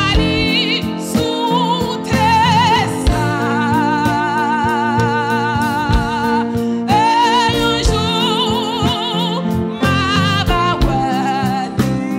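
A woman singing a gospel hymn solo, holding long notes with a wide vibrato, over steady instrumental accompaniment.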